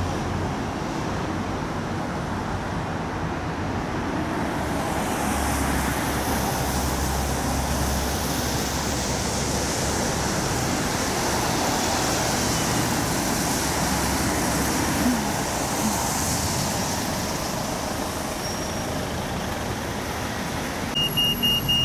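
City street traffic: a steady wash of passing cars and double-decker buses, with a low engine rumble from about five to ten seconds in. A fast, high electronic beeping starts near the end.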